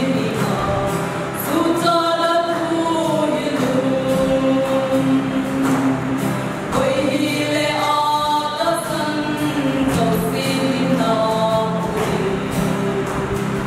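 A small group of women's voices singing a gospel hymn in harmony, with long held notes, accompanied by an acoustic guitar.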